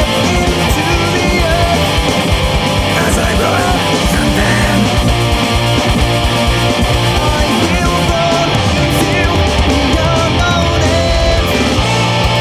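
Death metal band playing: distorted electric guitars and fast, steady low drumming over dense music.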